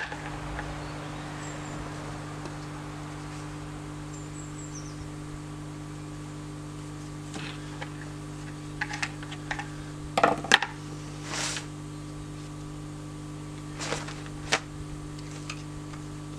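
Knife blade scoring a mark into a wooden branch: a few short, scratchy scrapes, the loudest about ten seconds in, over a steady low hum.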